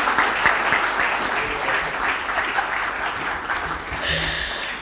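Audience applauding, a dense patter of many hands that gradually dies down toward the end.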